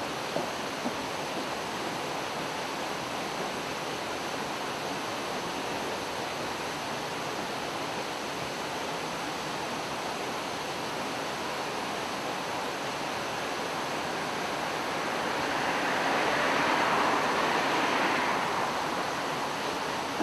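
Steady rushing of river water, an even noise that swells for a few seconds near the end.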